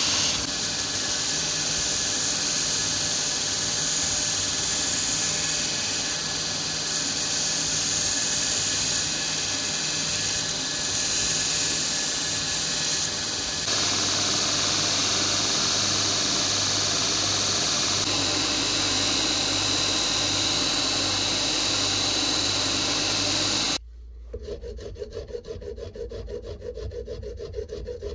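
Belt grinder running with its abrasive belt sanding a wooden knife handle, a loud steady whir and hiss. It cuts off suddenly about 24 seconds in, giving way to a hand file rasping across the knife in quick repeated strokes.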